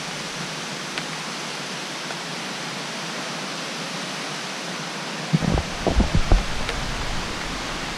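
Steady rushing of a nearby waterfall, an even hiss of falling water. About five and a half seconds in, a short cluster of low thumps and knocks is heard as the camera is jostled.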